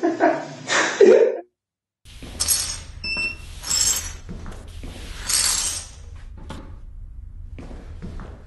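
A broom sweeping a hard floor in several long strokes, with a few short ringing clinks of glass among the swishes.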